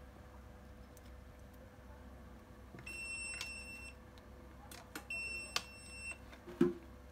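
Two electronic beeps, each about a second long at one steady high pitch, roughly a second and a half apart, with a few light clicks and a short thump of test leads being handled.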